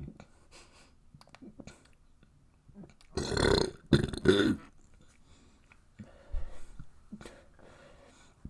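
A person burping loudly twice in quick succession, about three seconds in, each burp lasting under a second, with a few faint short sounds before and after.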